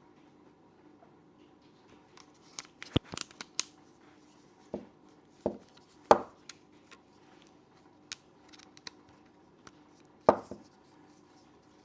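Action camera being fitted into its plastic mounting holder: scattered clicks and knocks of hard parts meeting, a quick cluster about three seconds in and the two loudest knocks about six and ten seconds in.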